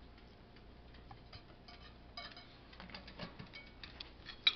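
Light metallic clicks and ticks as a bicycle cassette lockring is threaded onto the rear hub by hand, with one sharper click near the end.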